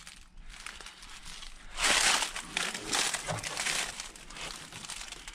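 Footsteps crunching and rustling, in two louder bursts about two and three seconds in.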